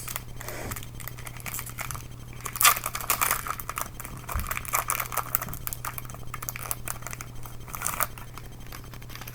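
Foil trading-card booster pack crinkling and tearing as it is opened by hand, in irregular rustles, the loudest about two and a half seconds in.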